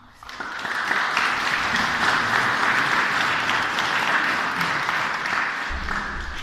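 Audience clapping, starting suddenly about a quarter of a second in and dying down near the end.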